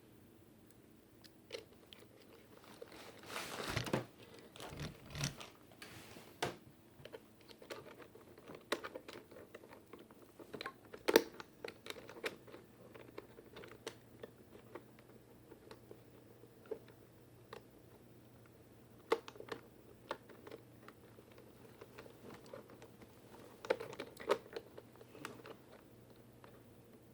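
Scattered key clicks and taps on a TG Sambo TG-K7000 gaming keyboard being handled and pressed, with a short rustle about three seconds in.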